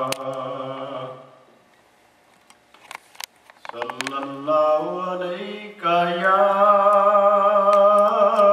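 A man chanting a naat unaccompanied through a microphone. A long held note fades out about a second in. After a short pause he begins a new line that climbs in pitch and settles into a long held note near the end.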